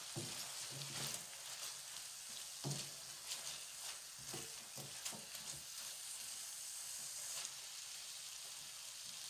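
Chicken, carrot and noodle stir-fry sizzling steadily in a hot coated wok, tossed with a spatula whose strokes scrape and knock against the pan for the first five seconds or so; after that only the even sizzle continues.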